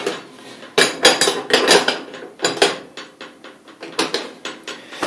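Stainless steel wire pan-support grid and burner caps of a small Parker marine gas cooker clinking and rattling as they are handled. The sound is a run of sharp metal clicks and clatters.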